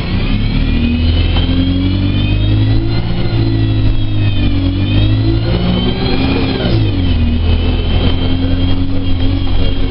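ADL Enviro 200 Dart single-deck bus engine and driveline heard from inside the passenger saloon as the bus drives, with a high whine rising and falling together with the engine note. The pitch climbs, dips, and climbs again, then drops sharply a little before 7 seconds in, as on a gear change, and holds steady after.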